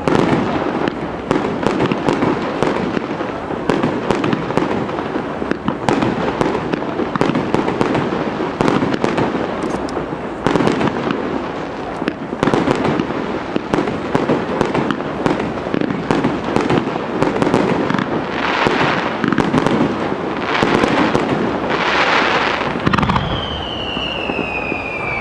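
Japanese aerial fireworks display: dense, rapid bangs and crackling from bursting shells. In the second half, three long swelling hisses rise and fade one after another.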